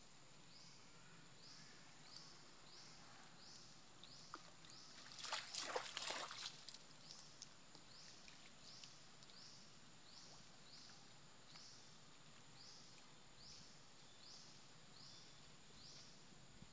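Water splashing and sloshing as a macaque moves through a shallow muddy pool, a short burst about five seconds in. High rising chirps repeat about once a second in the background.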